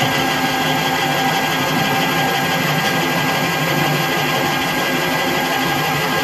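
Colchester Bantam lathe running steadily, taking a 20 thou cut on a steel blank, with an even machine hum and a few steady whining tones.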